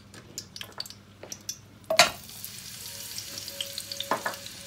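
Chunks of chopped onion dropped into hot oil and butter ghee in an aluminium frying pan: faint ticking from the warm fat, a clatter as the onions land about two seconds in, then a steady sizzle as they start to fry.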